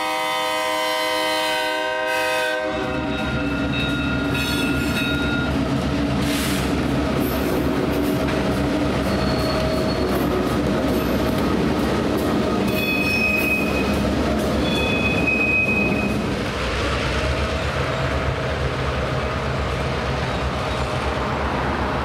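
Horn of a pair of EMD GP-series diesel locomotives running light, sounded for a grade crossing and ending about three seconds in. Then the diesel engines drone as the locomotives pass close by, working up a steep grade, with several brief high wheel squeals.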